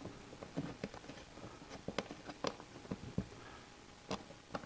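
Faint, irregular small clicks and taps of an Allen wrench working a countersunk bolt into a metal Picatinny rail on a rifle stock.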